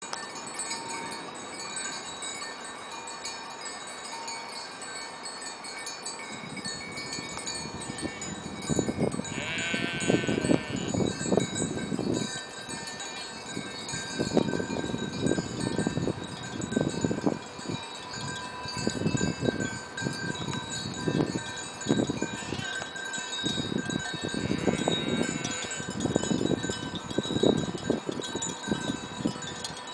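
Many bells on a herd of grazing goats tinkling continuously, with a goat bleating about ten seconds in and again near twenty-five seconds. From about six seconds on, wind rumbles in gusts on the microphone.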